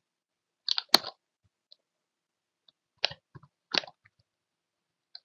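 A few sharp clicks of a computer keyboard and mouse, in small clusters about a second in and around three to four seconds in, as code is copied and edited.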